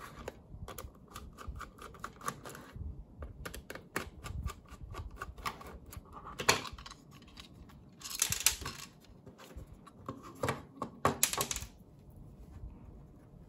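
Hard plastic enclosure being unscrewed and opened by hand: a run of quick small clicks, then a few louder plastic clacks as the lid and parts are handled.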